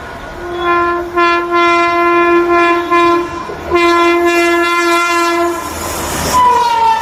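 Indian Railways locomotive horn on the Gareeb Rath Express sounding three long steady blasts as the train approaches at high speed. Near the end the horn's pitch drops as the locomotive passes, and the rush and rumble of the passing train rise.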